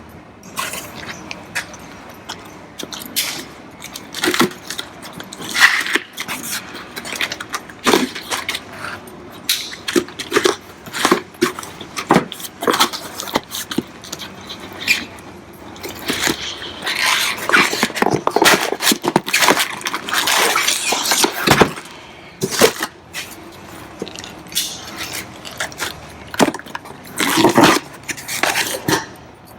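Parts and packaging being handled: scattered knocks, clunks and rustling, with a longer stretch of rustling in the middle.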